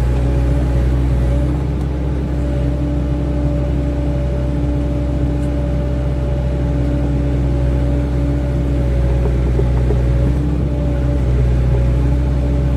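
Hydraulic excavator's diesel engine running steadily while it digs and moves soil, with a higher whine that cuts out and comes back several times as the machine is worked.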